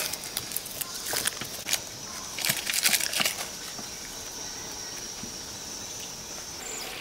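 Dry onion skin crackling as it is peeled away with a knife, mixed with a knife cutting fresh greens on a cutting board: a scatter of crisp snaps and cuts, busiest about three seconds in.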